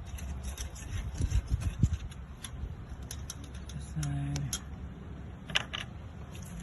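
Scattered light clicks and clinks of hand tools on metal as a bolt is worked loose in the engine bay.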